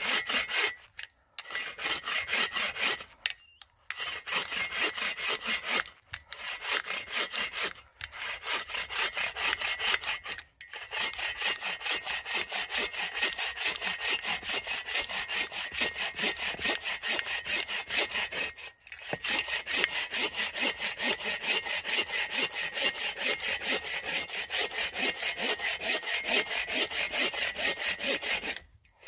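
Bow saw cutting through a small birch log in quick back-and-forth strokes. The saw stops briefly several times in the first ten seconds, then runs steadily for long stretches.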